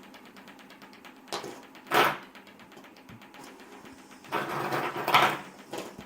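Fidget spinners being handled on a hard surface: a faint rapid ticking, two sharp knocks near the start and a longer clatter past the middle.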